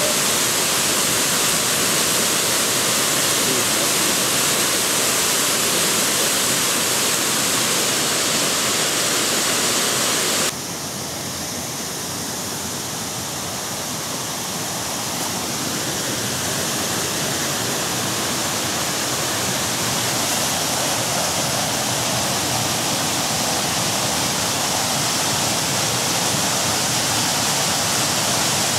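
Rushing water, a steady, even noise. It drops suddenly in level about ten seconds in, then slowly builds back up.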